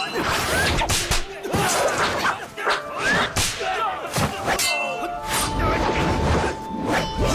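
Dramatised fight sound effects: a rapid series of whooshes, hits and metallic clangs over background music, with a held tone in the last couple of seconds.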